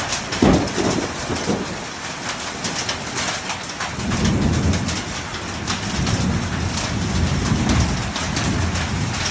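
Hail and heavy rain falling, a dense hiss pierced by many sharp ticks of hailstones striking. A low rumble swells from about four seconds in and holds for several seconds.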